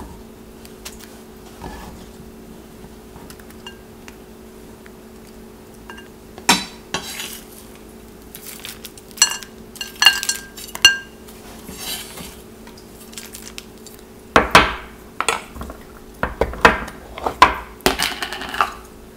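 Kitchen clatter: faint knife taps on a wooden cutting board, then a few ringing clinks as chopped nuts are dropped onto a ceramic salad plate, and in the last few seconds several louder knocks as a glass jar, a small plate and a spoon are handled on a stone countertop. A steady hum runs underneath.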